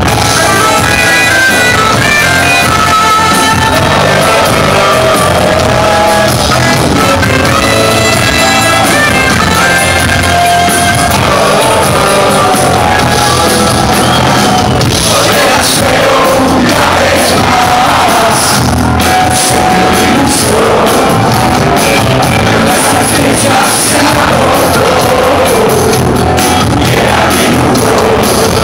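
A live rock band playing loudly, with electric guitars, bass, drums, keyboard and saxophone, and singing over the top.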